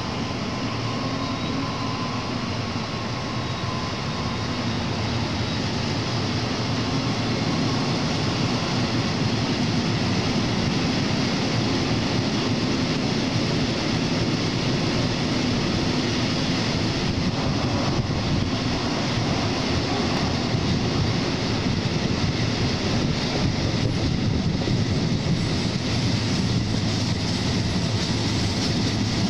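A DR/DB class 219 twin-engine diesel-hydraulic locomotive hauling a train, heard from an open window just behind it: engine noise mixed with wheels on the rails and wind. The sound grows louder over the first several seconds as the train gathers speed, then stays steady.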